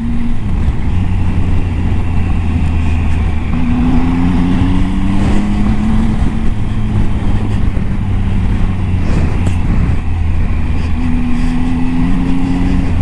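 Triumph Tiger 800 XCA's three-cylinder engine pulling steadily at low speed on a loose gravel track, with tyre and wind noise. The engine note rises slightly twice, about four seconds in and near the end, as the throttle is opened.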